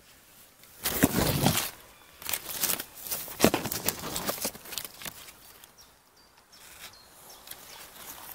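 Rustling of dry leaves, pine needles and grass as a hand pushes into the forest floor and picks a chanterelle mushroom. There is a loud burst about a second in and a longer broken stretch from about two to four and a half seconds, then it fades.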